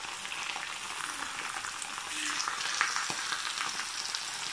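Four eggs frying in a pan, a steady sizzle with scattered small crackles and pops.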